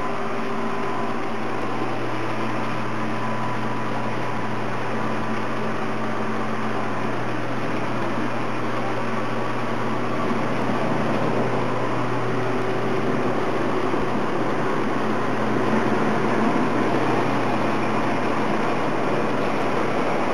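Steady machine hum and whir with a low drone, such as a fan or air-conditioning unit running.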